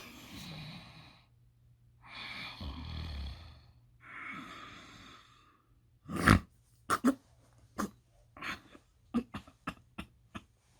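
A person breathing out heavily three times, then an irregular run of about a dozen sharp knocks, the first one the loudest.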